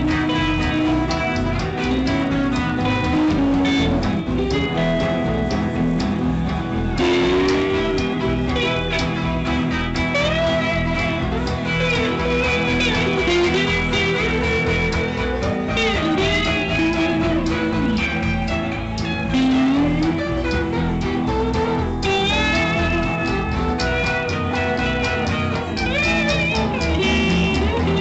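Live band music with a lead guitar playing bent, sliding notes over a steady bass and beat, in a blues style.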